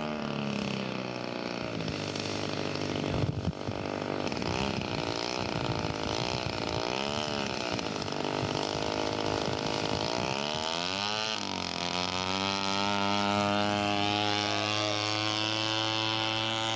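Model airplane engine, the Quadra 65 two-stroke in a third-scale Piper Cub model, running with its pitch rising and falling several times. About 11 seconds in it revs up sharply and holds a high, steady note.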